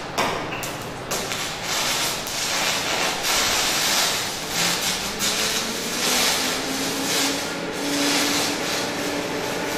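TIG welding arc on thin sheet metal: a loud crackling hiss that rises and falls in loudness, beginning with a sharp crack as the arc strikes just after the start.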